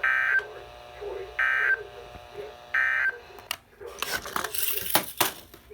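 Three short, buzzy digital data bursts from a Midland WR120 weather radio's speaker, each about a third of a second long and about a second and a half apart: the Emergency Alert System end-of-message code that closes the required weekly test. This is followed in the second half by rustling and clicks.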